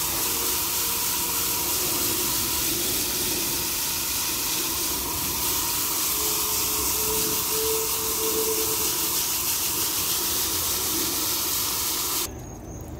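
Water from a garden hose spray nozzle on its shower setting splashing onto the fins of an air-conditioner condenser coil, a steady hiss of spray that cuts off suddenly near the end.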